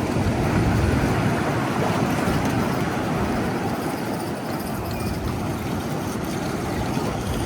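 Wind buffeting the microphone: a loud, unsteady rushing noise, heaviest in the low end, with no other clear sound over it.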